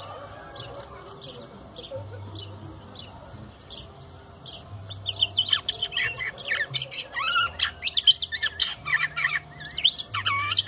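Curve-billed thrasher (huitlacoche) singing: evenly repeated high chirps, about two a second, give way about five seconds in to a loud run of varied, quickly changing whistled phrases.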